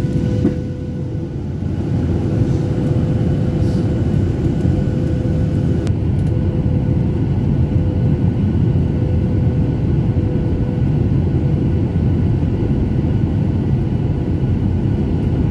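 Steady cabin noise of a Boeing 737 airliner descending on approach to landing, heard inside the cabin by the wing: a low rush of airflow and engines with a constant hum running through it, dipping briefly about a second in.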